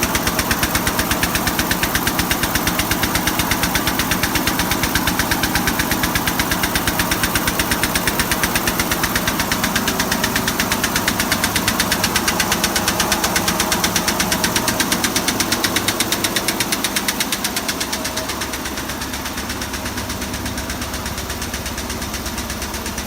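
Richpeace multi-needle quilting machine running at speed, its needle bars stitching with a rapid, even mechanical clatter. About three quarters of the way through it gets a little quieter and the lower hum changes, but the fast stitching rhythm carries on.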